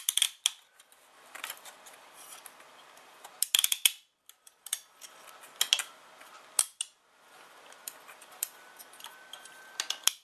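Small metal parts clicking and clinking as screws, nuts and washers are handled and fitted onto a hard drive platter on a threaded rod, in short clusters of sharp clicks with pauses between.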